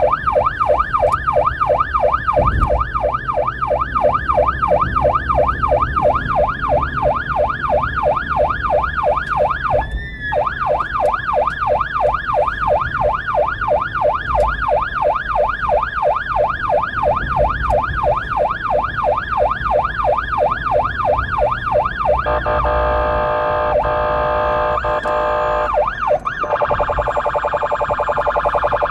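Blood-transport car's electronic siren in yelp mode, rising and falling about three times a second, with a brief break about ten seconds in. About three quarters of the way through it switches to a faster, steadier warbling tone.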